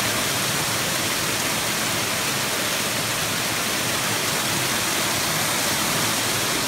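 Waterfall cascading in several small streams over and between boulders, a steady, unbroken rushing of falling water.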